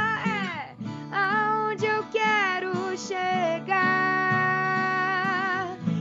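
A woman singing over her own strummed acoustic guitar: the voice slides down at the start, sings short phrases, then holds a long note with vibrato near the end.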